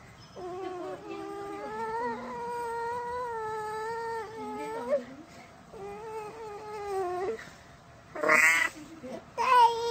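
A young girl crying: two long, wavering wails, the first about four and a half seconds, the second shorter, then two short, louder sobbing cries near the end.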